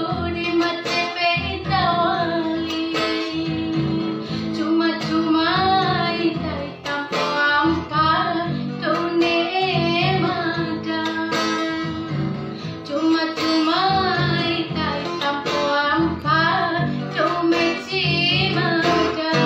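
A woman singing a slow song over a strummed acoustic guitar.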